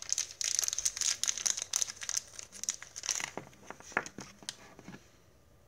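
Toy packaging crinkling and rustling as it is handled and pulled apart. The crackle is dense for about three seconds, thins to a few scattered clicks, and stops about five seconds in.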